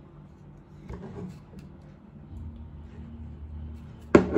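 Handling of a plastic Li-ion battery charger, with small clicks, then one sharp knock about four seconds in as it is set down on the table.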